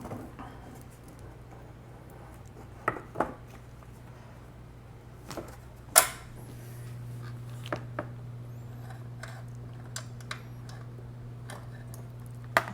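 Scattered clicks and knocks of small hard parts and tools being handled, over a steady low hum; the loudest knock comes about six seconds in.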